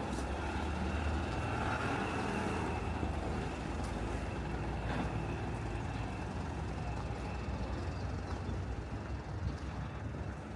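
A motor vehicle's engine running, a steady low rumble that swells slightly about two seconds in and slowly eases off.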